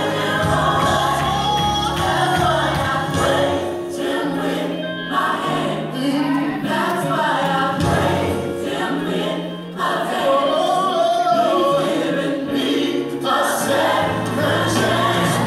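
Gospel song with choir singing over held bass notes, played loud through the room.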